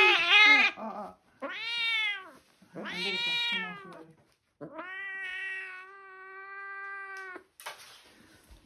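Domestic cat yowling in protest while held wrapped in a cloth for an FIP injection: a loud yowl that breaks off, two shorter meows that rise and fall, then one long steady meow.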